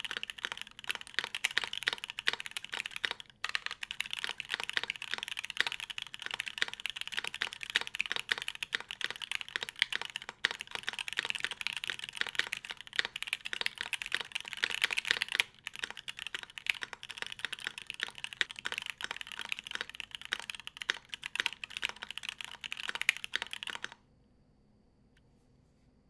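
Fast, continuous typing on a DNWorksco SVJ/SBL tenkeyless mechanical keyboard with filmed Tealios linear switches and an aluminium, o-ring-mounted build, giving a dense stream of key clacks. The typing pauses briefly twice and stops abruptly near the end.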